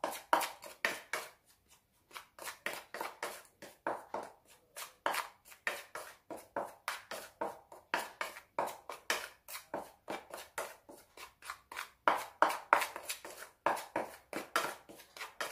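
A metal spoon scraping quickly against a bowl as dry spice powders are stirred together, about three strokes a second with a couple of short pauses.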